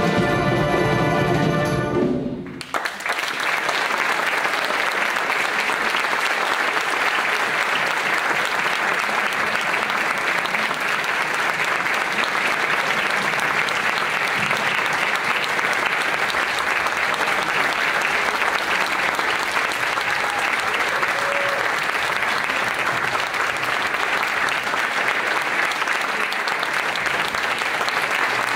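Concert wind band holding its final chord, which cuts off sharply about two and a half seconds in; then the audience applauds steadily.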